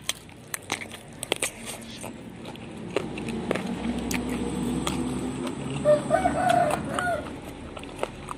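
Close-up crunching and chewing of raw leunca berries, with sharp crunches in the first few seconds. A rooster crows in the background about six seconds in.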